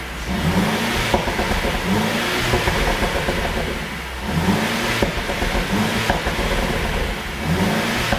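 Mercedes-Benz W205 C200 Cabriolet engine revved in repeated short blips, with sharp exhaust pops as the revs drop, the sound of a pop-and-crackle tune.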